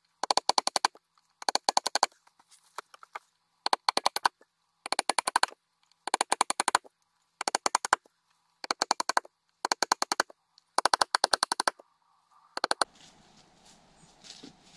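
Rapid mechanical clicking in about eleven short bursts, a little over one burst a second, each a fast run of sharp clicks; it stops about 13 seconds in, leaving a faint rustle.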